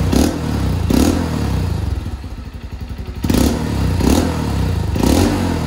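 Honda CRF150L's single-cylinder four-stroke engine running through an aftermarket X6 full exhaust, the throttle blipped about five times in short revs: once near the start, again about a second in, then three more in the second half.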